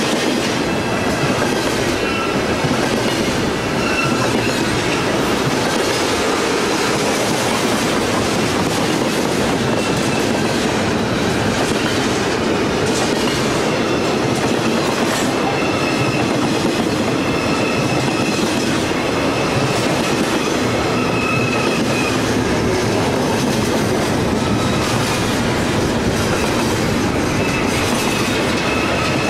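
Intermodal freight train rolling steadily past close by: trailer flatcars and double-stack container cars in a continuous roar, with the wheels clicking on the rails and brief high wheel squeals now and then.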